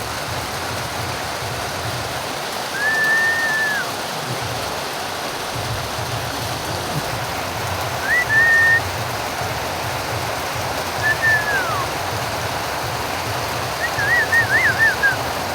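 Steady rain hiss, with a bird whistling clear calls four times over it: a held whistle, a short one, one that slides down at its end, and a quick warbling run near the end.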